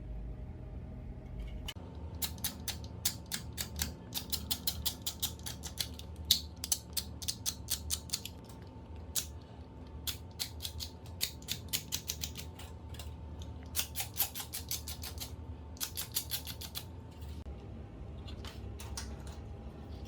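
Runs of sharp mechanical clicks, several a second and in quick clusters, over a faint steady whine that drops slightly in pitch near the end.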